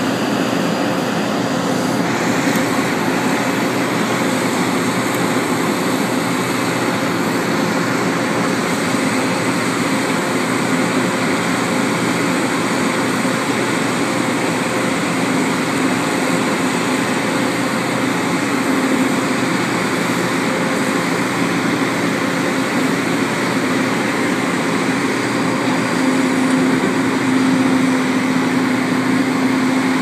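Combine harvesters running steadily while harvesting corn: a loud continuous drone with a constant hum, a little louder near the end.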